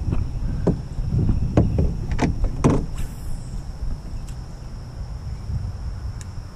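A few sharp knocks and splashes of gear and water against a canoe in the first three seconds, over a low rumble of wind on the microphone.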